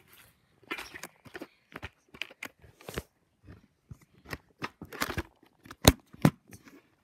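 Handling noise from a phone held against the body: irregular rustling, scraping and tapping on the microphone, with two sharp knocks close together a little before the end.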